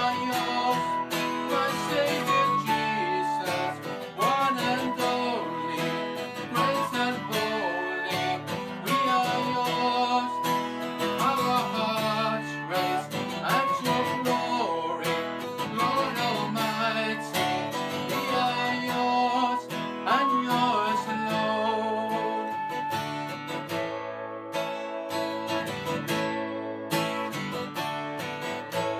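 Flute and strummed acoustic guitar playing a worship song together. Near the end the flute drops out, leaving the guitar.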